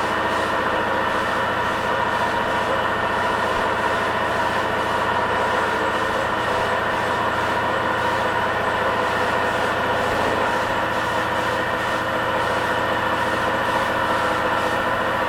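Homemade direct-feed air compressor running steadily, a constant machine hum with a fine even pulse and no change in level.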